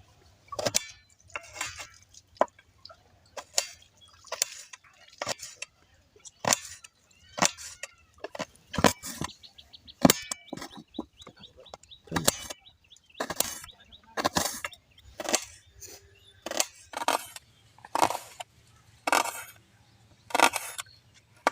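An irregular series of short, sharp noises, about one or two a second, from goat intestines being handled and cut while the bhuri is prepared.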